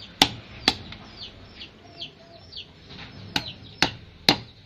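Pestle being brought down hard on a stone mortar (cobek), smashing pieces of fresh spice root flat: two sharp knocks near the start, then after a pause three more about half a second apart near the end.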